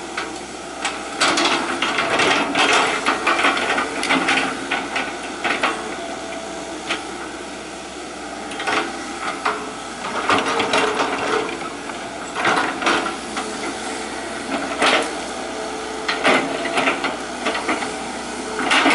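Hitachi EX120 excavator at work: irregular knocks, cracks and scrapes, as of the bucket striking and dragging through earth and debris, over a steady machine hum.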